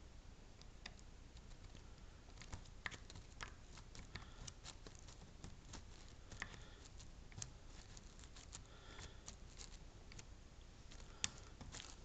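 Faint, irregular small clicks and scratches of a lock pick and a nylon strip working in the keyway of a Mila Evolution lock cylinder, with one sharper click a little before the end.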